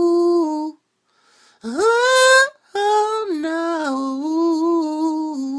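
A man singing unaccompanied in a high voice, wordless runs: a held note that stops under a second in, a swooping rise to a higher note, then a wavering, slowly falling held line.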